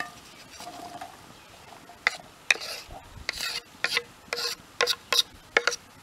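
Diced potatoes scraped off a wooden cutting board into a frying pan, with the board knocking and scraping against the pan's rim. It comes as a quick run of about eight or nine sharp knocks and scrapes starting about two seconds in, a few of them with a brief metallic ring.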